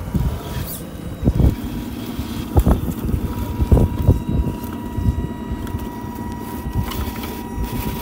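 Small electric motor and gearbox of an RC rock crawler whining steadily as it crawls over rocks, the whine setting in about three seconds in, over low rumbling and irregular bumps.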